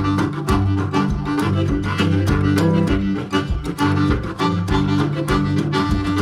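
Upbeat background music with string instruments and a regular beat.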